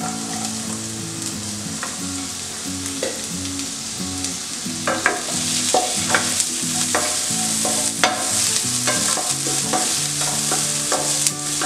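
Chopped onion sizzling in hot oil in a nonstick pan, stirred with a wooden spoon that knocks and scrapes against the pan. The sizzle grows louder about halfway through.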